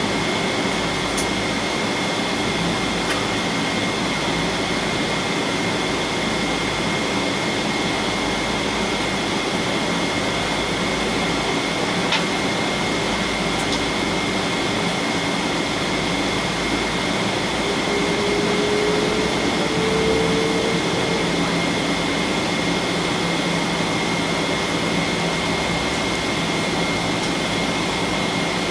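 Steady cabin noise of a Boeing 777-200ER with its Rolls-Royce Trent 892 engines running at low power: an even rush of air with a constant high whine. A faint lower tone rises slightly about two-thirds of the way in, and there is a single click near the middle.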